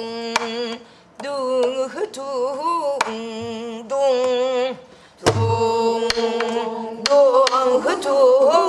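A woman singing a drawn-out, wavering pansori melisma, accompanied on a soribuk barrel drum: a few sharp stick clicks and one deep stroke on the drumhead about five seconds in.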